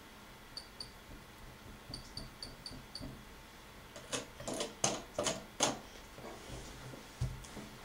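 Short high electronic beeps from a laptop as keys are pressed, two and then five in quick succession, followed by about five loud sharp taps on the laptop keyboard and a dull thump near the end.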